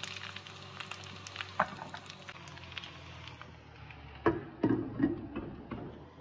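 Faint crackling and sizzling of chicken tikka skewers in a hot pan, with scattered light ticks. About four seconds in come a few louder clinks and knocks as a glass lid is set over the pan to shut in the charcoal smoke.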